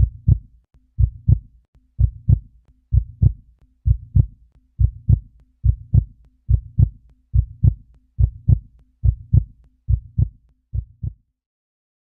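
Heartbeat sound effect: steady paired lub-dub thumps about once a second over a faint low hum, stopping abruptly near the end.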